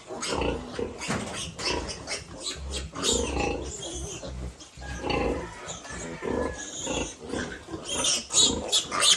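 Pigs grunting in many short, irregular calls.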